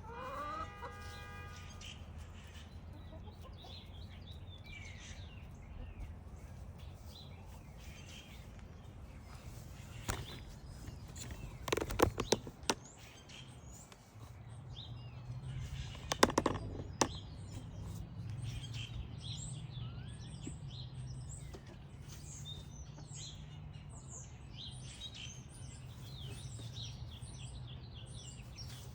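Backyard birds chirping, the chirps growing busier in the second half, with a short rising call from a Wyandotte hen at the start and a few sharp taps around the middle.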